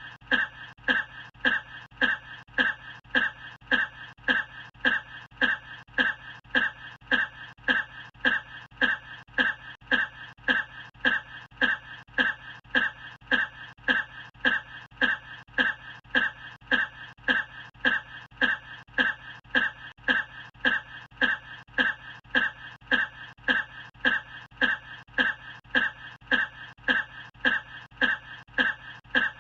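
A person's short cough repeated over and over at a perfectly even rate, about twice a second, each cough identical: one cough recording looped.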